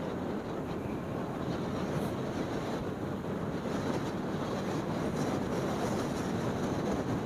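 Steady rush of wind over the microphone of a Suzuki scooter moving at road speed, with the scooter's engine and tyre noise mixed in beneath.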